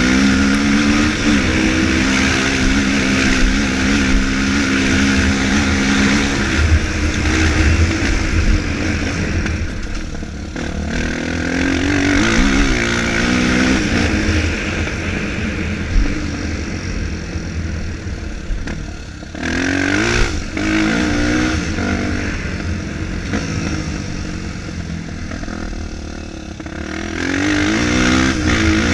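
Four-stroke trail dirt bikes riding around a motocross track, engines revving up and dropping back as they accelerate and shift, with several swells where a bike passes close.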